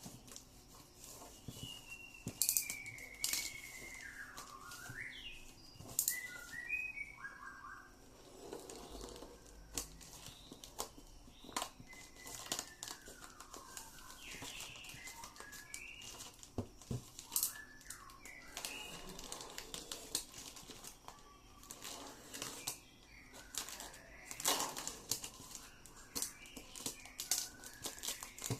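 Packaging being handled while a laptop motherboard is unboxed: irregular crinkling with sharp clicks and taps. Several whistled calls sliding down in pitch sound in the background.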